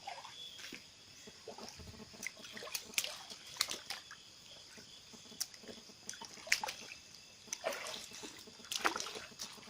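Shallow river water splashing and sloshing in short, irregular splashes, as someone moves through it, with a steady chirring of insects behind.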